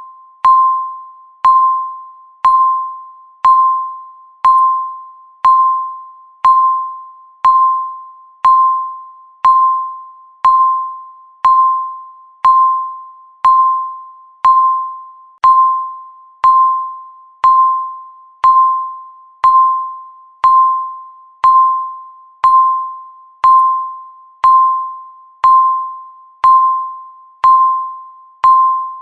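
Countdown timer beeping once every second, a single tone that starts sharply and fades away before the next beep.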